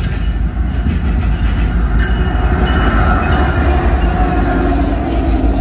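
Norfolk Southern diesel locomotives passing close by at the head of a freight train: a loud, deep engine rumble that builds as the lead units go past.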